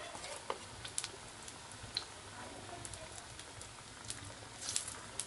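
Pakora batter frying in hot oil in a kadhai: a steady low sizzle with scattered sharp pops and clicks, a few of them bunched together near the end.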